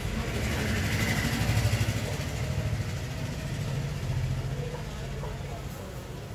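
Low engine rumble of a motor vehicle going by, swelling about a second and a half in and then slowly fading.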